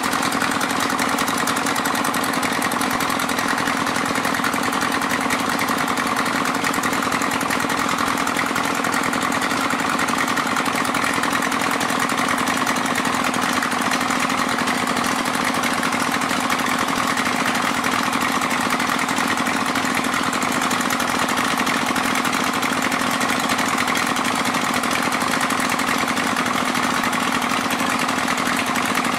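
Small engine of an alkon pump (a motor-driven water pump used to suck up sand) running steadily at constant speed.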